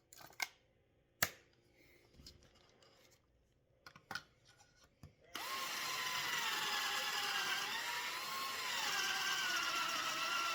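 A few light clicks and knocks, then about five seconds in a cordless drill starts and runs steadily, boring a pocket hole through a pocket-hole jig. Its whine wavers in pitch as it slows and picks up under load, and its battery is almost dead.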